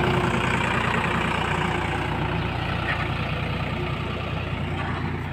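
Sonalika farm tractor's diesel engine running steadily as it pulls a trailer loaded with boulders past and away, its sound slowly fading.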